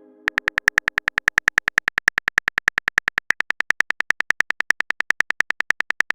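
Phone keyboard typing sound effect: rapid, evenly spaced clicks, about ten a second, running on steadily.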